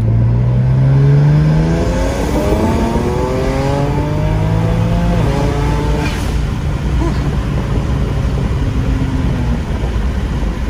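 BMW 335is's twin-turbo inline-six, heard from inside the cabin, pulling at full throttle in third gear from about 2,000 to 7,000 rpm, its pitch climbing steadily for about six seconds; it is slow to pull at the bottom (turbo lag) before the upgraded 19T turbos come in. About six seconds in the throttle closes with a brief sharp sound, and the revs fall back to a steady cruise.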